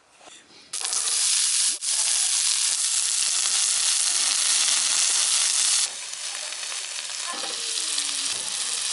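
Loud sizzling of food frying in a hot cast-iron Dutch oven, starting suddenly about a second in as the food goes onto the hot metal. It drops to a quieter, steady sizzle about six seconds in.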